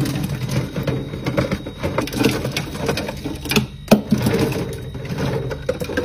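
Dozens of plastic-packaged soft candy balls pouring from a clear plastic tub and tumbling onto a glass fridge shelf and against each other: a dense rattling clatter with scattered sharper knocks, the loudest a little under four seconds in.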